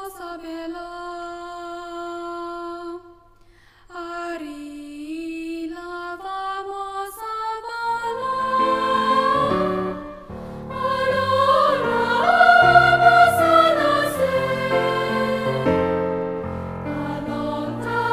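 A girl singing solo and unaccompanied, holding long, smoothly sliding notes. About eight seconds in, fuller music with several lower notes comes in beneath her, and the sound swells louder.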